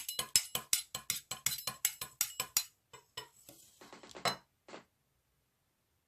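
A fast run of short, sharp taps or clicks, about six a second for the first two and a half seconds, then a few scattered ones that stop just under five seconds in.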